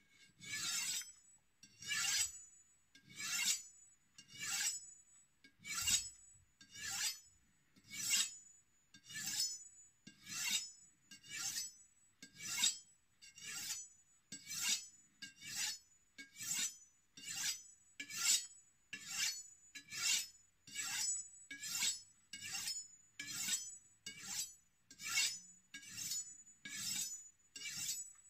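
A Maranc M10 kitchen knife's steel blade drawn stroke after stroke along a honing steel, each pass a short metallic scrape with a faint ring, a bit under one a second and slightly quicker toward the end. The blade is being honed to realign an edge that has gone dull from the middle to the tip.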